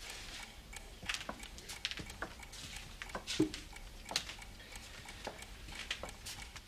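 Chalk writing on a slate or blackboard: faint, irregular light taps and short scratches.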